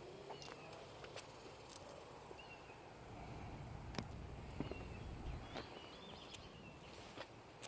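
Steady high-pitched insect drone, with scattered light clicks and rustles and a few faint bird chirps.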